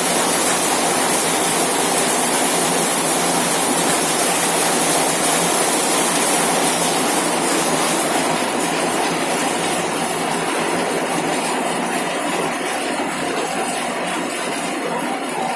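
Heavy rain falling on a corrugated zinc sheet roof: a dense, steady patter and hiss. From about halfway through it gets slightly softer and less hissy.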